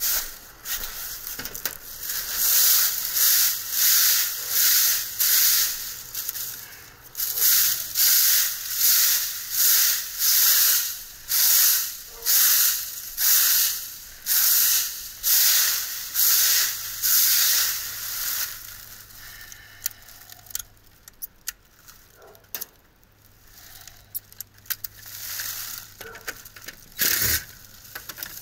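Footsteps crunching through dry leaves, a steady walking rhythm of about one and a half steps a second, which stops a little past halfway and gives way to quieter clicks and handling.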